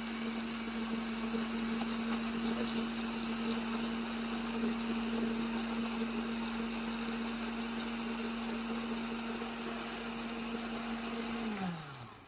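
Electric kitchen grinder motor running steadily with a constant hum. It is switched off about eleven and a half seconds in and winds down, its pitch falling as it stops.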